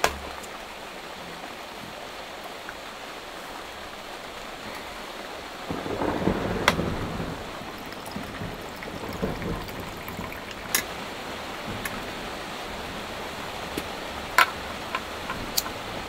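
Steady hiss of rain falling, with a louder rushing patch about six seconds in. Sharp clicks and knocks of coffee gear being set down on a wooden table come through now and then.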